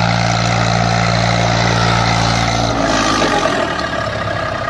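Eicher 380 tractor's diesel engine idling steadily. About three seconds in, the low steady note breaks up into a rougher, shifting engine sound.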